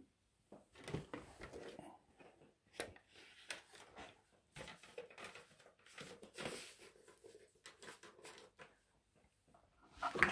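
Faint rustling and scattered small clicks of hands handling gear and cables on a workbench, with a louder brush of a fleece sleeve close to the microphone near the end.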